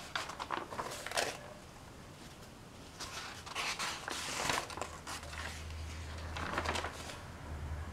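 Old newsprint magazine pages being handled and turned: soft papery rustles, the loudest about four seconds in as a page turns over, with a faint low hum beneath in the second half.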